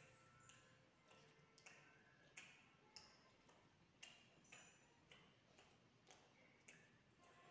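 Faint, irregular ticks and short scratches of a pen tip on paper as small circles are drawn.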